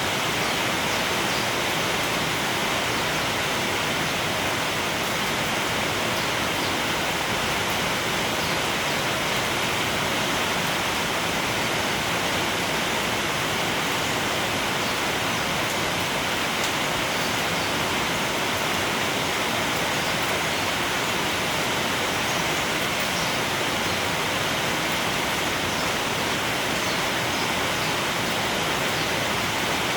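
Steady rain falling, an even, unbroken wash of noise.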